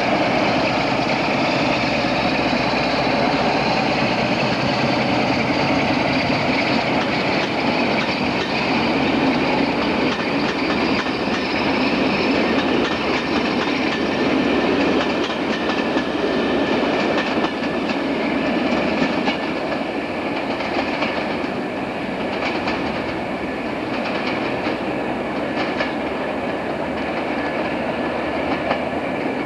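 A train running past, with continuous wheel and rail noise and a faint high whine that rises slowly in pitch over the first dozen seconds.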